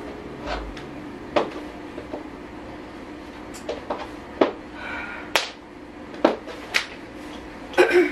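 Footsteps of heeled sock boots on a hard floor: sharp, irregularly spaced heel clicks, about a dozen, over a faint steady hum.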